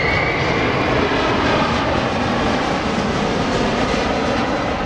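Jet engine roar from a Boeing 767 freighter making a low fly-by, a loud, steady rumble and rush as it passes overhead.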